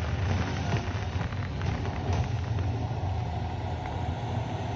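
Fireworks fired from the fountains, crackling with a few sharp pops over a steady low rumble.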